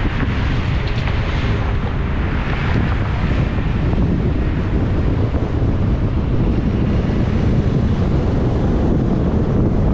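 Steady, loud wind rumble on an action camera's microphone, mixed with the road noise of a car driving.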